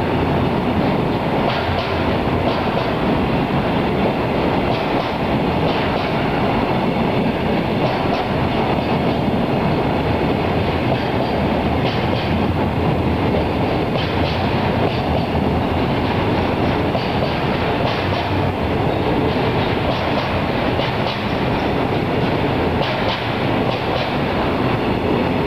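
Container freight wagons, Koki 50000 and Koki 104 flat cars, rolling past in a steady rumble, with the clickety-clack of wheels over rail joints every second or two.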